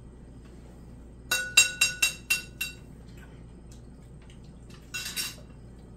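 Cutlery clinking against a ringing dish: a quick run of about six clinks about a second and a half in, then a shorter cluster near the end.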